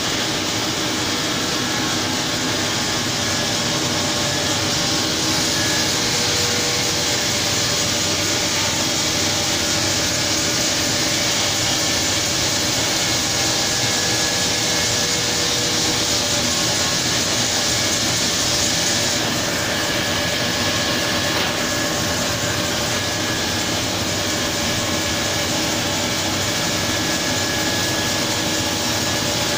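Fish-processing machinery running: a steady, loud mechanical noise with a hiss and a faint hum. The hiss grows brighter for a stretch in the middle.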